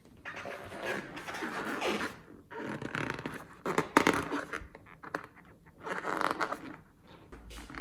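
Slime being squeezed and worked by hand close to the microphone: crackly, scratchy squishing with small pops, in three bursts with short pauses between them.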